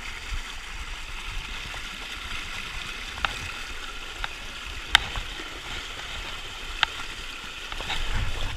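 Steady rushing of river water flowing over rocks, with a few sharp clicks or knocks, the loudest about five seconds in.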